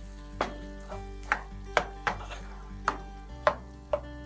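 Wooden spoon knocking and scraping against a frying pan while stirring a thick olive sauce, about seven irregular knocks. Soft background music with held notes underneath.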